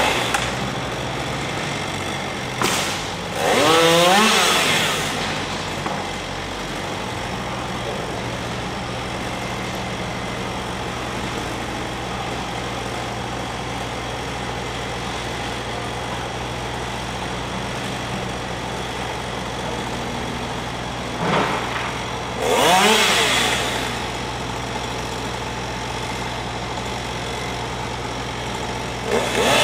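Husqvarna chainsaw idling steadily and revved up twice, about three seconds in and again around twenty-two seconds in, each rev rising in pitch for a couple of seconds before dropping back to idle.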